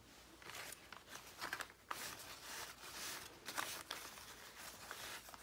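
Faint, irregular crinkling and rustling of paper towel as hands gather and press it around a clay slab sitting in a saucer.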